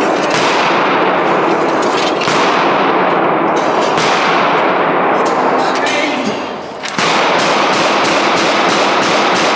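Gunshots echoing at a shooting range: a few single shots, a short lull, then a fast string of shots at about three a second near the end.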